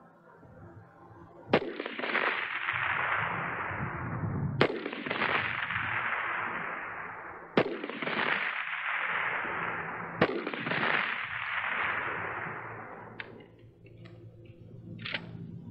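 M16A1 rifle (5.56×45mm) firing single shots: four sharp cracks about three seconds apart, each followed by a long echo that dies away over two to three seconds. A few fainter clicks near the end.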